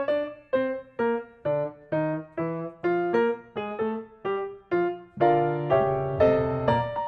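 Background music: a piano-like keyboard melody of single struck notes, about two a second, with fuller chords and a bass line coming in about five seconds in.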